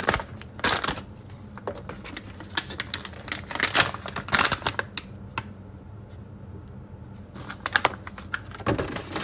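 Packaging being handled and opened by hand: irregular clicks, taps and short scrapes, coming in clusters with a quieter pause in the middle.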